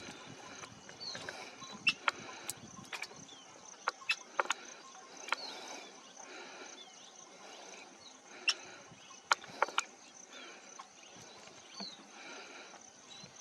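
Brown crake giving short, falling calls every second or two, mixed with scattered sharp clicking notes, over a steady high-pitched hum of insects.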